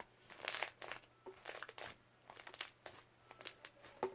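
Slime being kneaded and stretched by hand, giving irregular short crinkly crackles and pops.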